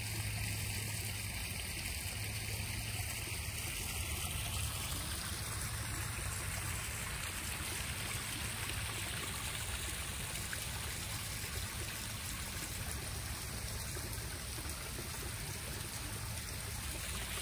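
Koi pond waterfall: water running steadily over stacked stones and splashing into the pond.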